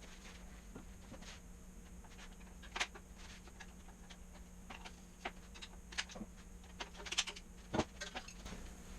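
Scattered light clicks and knocks from automatic-transmission internals being handled during a teardown, about a dozen spread unevenly and loudest in the last third.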